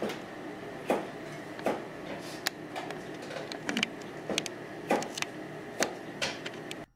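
Kitchen clatter: light clicks and knocks, about one or two a second, over steady kitchen background noise, cut off abruptly near the end.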